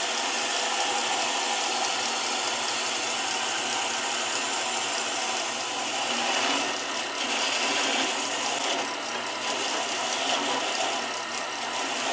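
Wire wheel on a drill press spinning against a bronze winch handle, a steady brushing hiss over the machine's hum that swells a few times in the second half.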